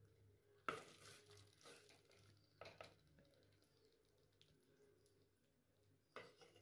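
Faint scraping and squelching of a spoon scooping thick prawn masala out of a clay pot onto a plate. It comes in a few short bursts: the strongest under a second in, smaller ones around one and three seconds in, and another near the end.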